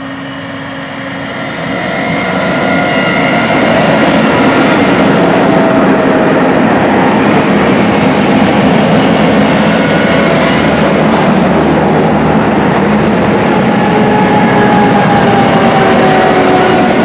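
A John Deere S780 combine travelling on the road, its engine and drive noise growing louder over the first few seconds and then running steadily, with whining tones that drift slowly lower in pitch.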